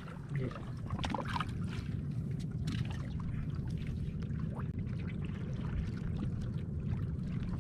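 Water splashing and trickling as a crab trap's line is hauled up by hand over the side of a small boat, over a steady low rumble.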